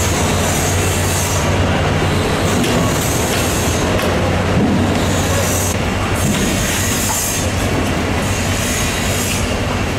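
A steady low mechanical hum under a broad noisy din, with hissy patches that come and go every second or two.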